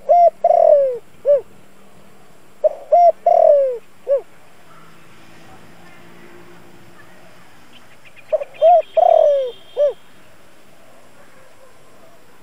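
Spotted dove (cu gáy) singing its cooing song three times: at the start, about three seconds in and again near nine seconds. Each phrase is a couple of short coos, a longer coo that falls in pitch, and a short final coo. It is a decoy dove calling to stir up wild-caught doves.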